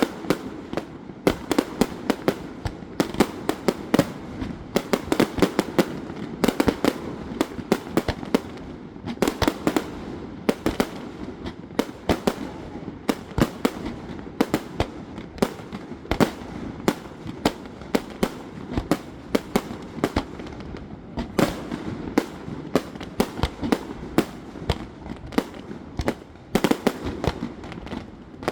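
Fireworks display: a dense, irregular run of bangs and crackling pops, several a second, over a constant low rumble.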